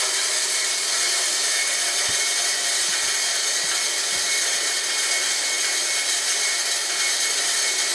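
Homemade electric corn grinder, built from a water pump, running steadily while grinding corn: a continuous, hissy grinding noise.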